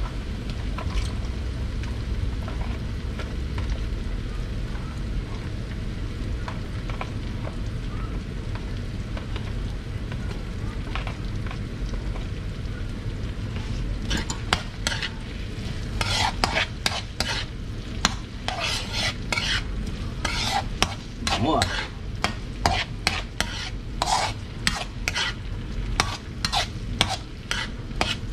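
Chopped onion and garlic frying in oil in a metal wok, a steady sizzle. From about halfway, a metal spatula stirs them in quick strokes, scraping and clattering against the wok.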